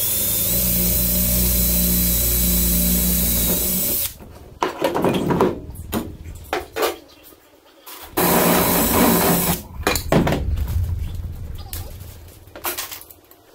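Cordless drill drilling into aluminium angle framing: one steady run of about four seconds, then a shorter run about eight seconds in. Between and after the runs come scattered knocks and clatter of metal and tools being handled.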